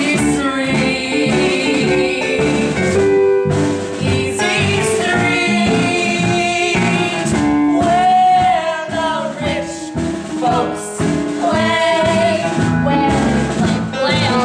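Singers performing a musical-theatre song live on stage, accompanied by a live pit band.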